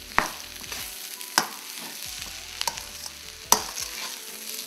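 Mashed potato and vegetable filling being stirred in a stainless-steel pan over the heat: a utensil scrapes and knocks sharply against the pan several times over a soft sizzle.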